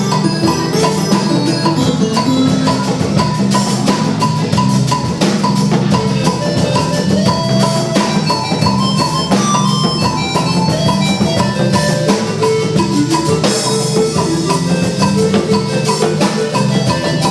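Instrumental music track: a steady drum beat under a fast line of short, bright melodic percussion notes, playing continuously.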